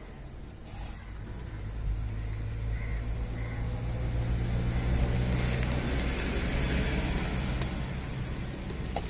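Engine of a road vehicle running: a low hum that grows louder about two seconds in and then holds steady.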